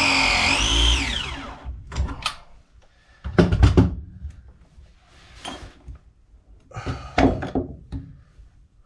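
A cordless power tool's motor running steadily, then winding down with a falling pitch about a second in. Several knocks and clunks of tools and fittings being handled follow.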